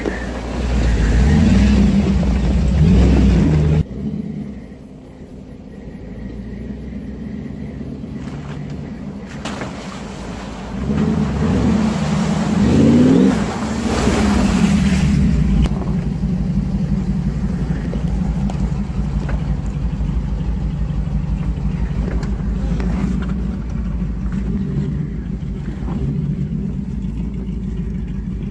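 Toyota Land Cruiser 70-series V8 engine working off-road: revs rise twice under load, near the start and again around the middle. Tyres splash through muddy water in the middle, and then the engine runs steadily at low revs. The sound breaks off abruptly between clips.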